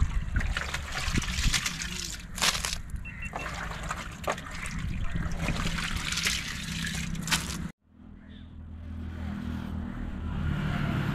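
Water splashing and trickling as handfuls of small fish are scooped out of a bucket of water and dropped into a wicker basket, with a few sharper splashes. After a sudden break about eight seconds in, a steady low outdoor hum takes over.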